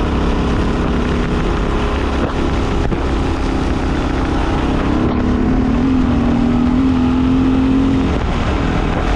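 Honda XR600R's air-cooled single-cylinder four-stroke engine running under way, with wind rushing over the microphone. The engine pitch rises about halfway through, holds higher for a few seconds, then eases off near the end.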